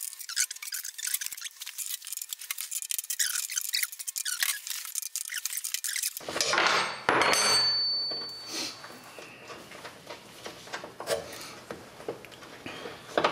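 A ratcheting wrench clicks rapidly as it turns a bolt on a Kubota BX snowblower's auger housing, working it loose. From about halfway through there are a few sharp clinks and scrapes of the wrench on metal.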